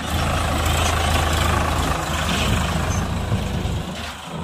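Sonalika farm tractor's diesel engine running steadily as it pulls a trailer past at close range, growing a little fainter near the end.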